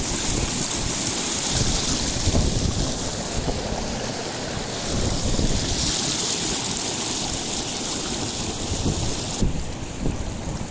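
Fast-flowing, calcium-rich hot-spring water rushing down a shallow channel and splashing around bare feet and legs, with an irregular low rumble beneath. Near the end the rushing hiss cuts away, leaving only the low rumble.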